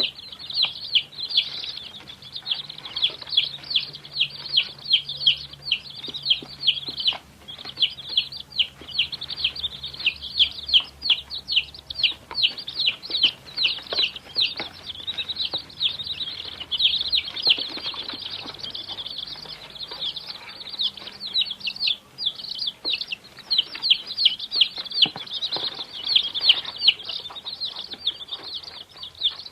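Many baby chicks peeping continuously, overlapping high-pitched calls that fall in pitch, several a second.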